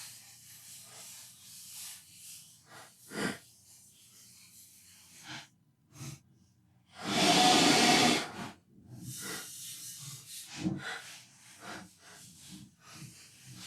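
A spray hissing: a few brief spurts, then one burst lasting about a second around seven seconds in. Light handling clicks and rustles can be heard around it.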